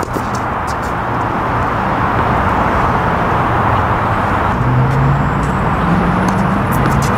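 Steady road traffic noise, with an engine note that rises briefly about five seconds in, and a few light clicks near the end.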